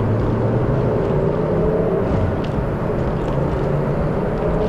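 Steady drone of a car's engine and road noise heard from inside the moving car, its pitch wavering slowly.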